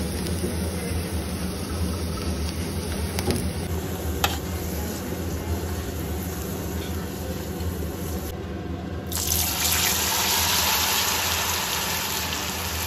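Cornflour-coated spiral potato on a skewer deep-frying in hot oil: a steady sizzle and bubbling that grows louder about nine seconds in.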